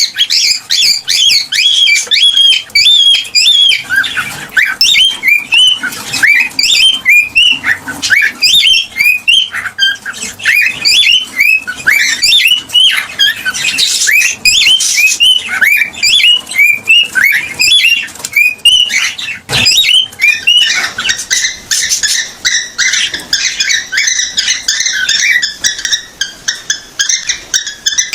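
Cockatiel calling in a rapid run of short, bent whistled chirps, about two a second. About two-thirds of the way through it turns into a denser, higher chatter.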